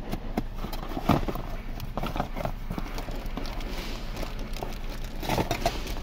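Cardboard parts box being opened and handled, with scattered knocks and rustling as a part in a plastic bag is pulled out. The sharpest knock comes about a second in, another just after five seconds.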